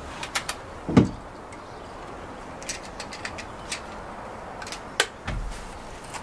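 Scattered clicks and knocks of an FX Indy air rifle being handled: a dull thud about a second in, then several sharp clicks, and a brief low rumble near the end.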